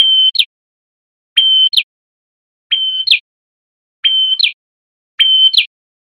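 A male red-headed prenjak, a rufous-headed tailorbird, singing a loud repeated two-note phrase: a short held whistle followed by a quick falling note. The phrase comes five times, about once every second and a quarter.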